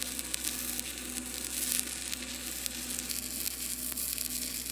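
Stick-welding arc from a 7018 electrode run uphill on a steel I-beam joint: a steady crackling sizzle with fine irregular pops.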